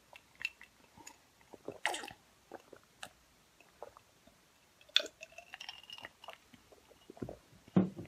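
Sips and swallows from a glass of iced soda, with scattered light clicks of ice against the glass. A sharper knock near the end as the glass is set down.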